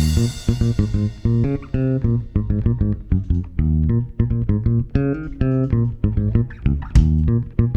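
Instrumental break of a live band: electric bass and guitar playing a run of plucked notes, with no singing. A drum-kit crash at the start rings off, and another sharp hit lands about seven seconds in.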